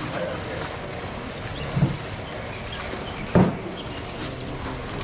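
Steady background noise of an open-air market, broken by two brief dull thumps, one near two seconds in and one about three and a half seconds in.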